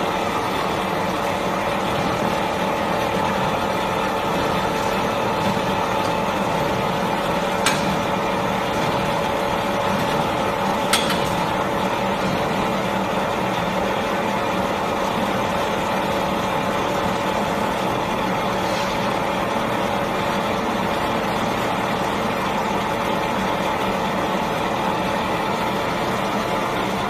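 Steady hum of running machinery with a constant whine over it, and two short clicks about eight and eleven seconds in.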